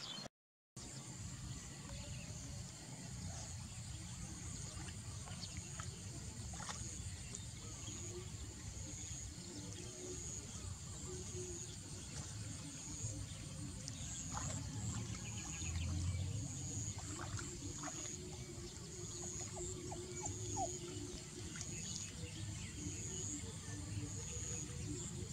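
Outdoor ambience: insects chirping in a steady, pulsing high band over a low rumble, with a few faint clicks. The sound cuts out for a moment near the start.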